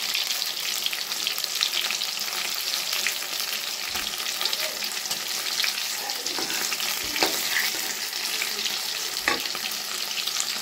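Banana-flower pakoras deep-frying in a kadhai of hot oil: a steady crackling sizzle, with a few soft knocks of a spatula working them about four, seven and nine seconds in.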